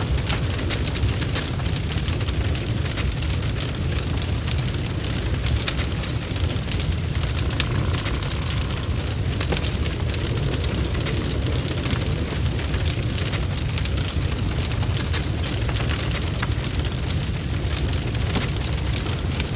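Bonfire crackling: a dense, steady patter of small pops and snaps over a low rumble of burning.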